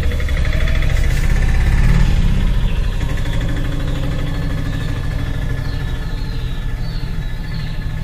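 Auto-rickshaw engine running at a rough, low idle. It swells around two seconds in, then settles to a steady rumble.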